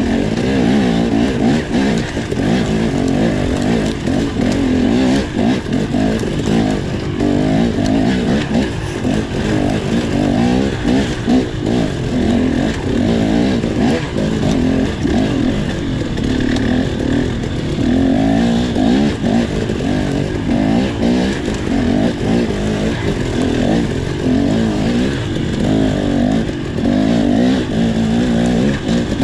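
Enduro dirt bike engine riding off-road, revving up and down constantly as the throttle is worked, with a steady noise of wind and rough trail underneath.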